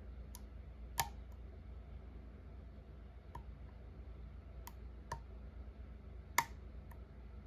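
Light metallic clicks and ticks of a hook pick working the pins inside a pin-tumbler challenge lock, scattered and irregular, with two sharper clicks about a second in and about six seconds in.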